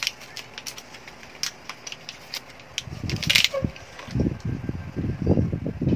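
Scattered light clicks and taps from hand work on a plastic ink cartridge, with a short scrape about halfway through. The second half is a dense run of dull low knocks and rubbing.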